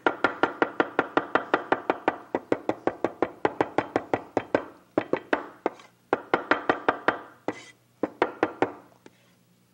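Large kitchen knife rapidly chopping fresh dill and mint on a wooden cutting board: fast, even knocks of the blade on the board, about six a second, each with a brief ring. A long steady run is followed by several shorter runs, and the chopping stops shortly before the end.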